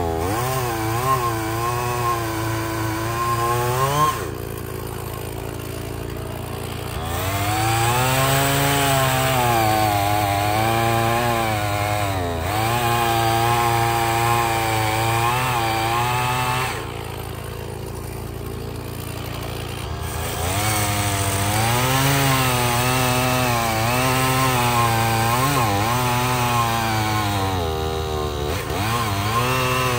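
Two-stroke Stihl chainsaw sawing through firewood logs at full throttle, its pitch sagging and recovering as the chain works through the wood. Twice it drops back to idle for a few seconds between cuts, about four seconds in and again near the middle.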